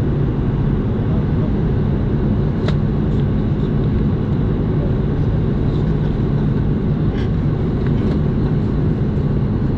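Steady cabin noise of an Airbus A330 in the climb, heard from a window seat over the wing: a constant engine drone and airflow rush, with a few faint clicks in the cabin.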